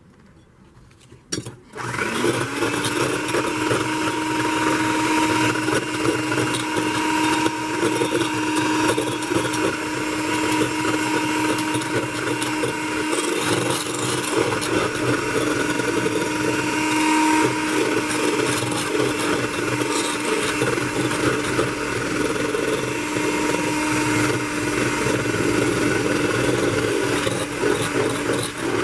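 Electric hand mixer switched on with a click about a second and a half in, then running steadily, its beaters whisking egg white and icing sugar in a stainless steel bowl into icing.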